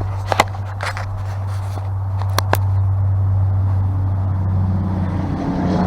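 A motor vehicle engine running with a steady low hum, growing louder near the end, with a few light clicks and taps over it.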